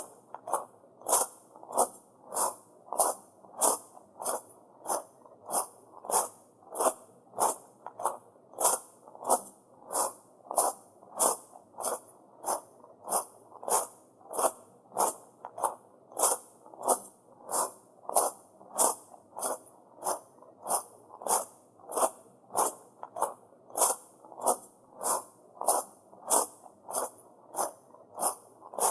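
Footsteps on tamajari, small rounded pebble gravel: a steady walking pace of crisp crunches, just under two a second.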